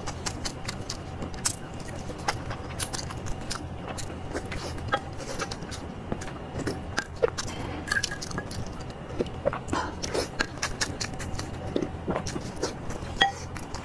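Close-miked eating: a person biting and chewing soft boiled egg white, with many small wet mouth clicks and smacks and one sharper click near the end.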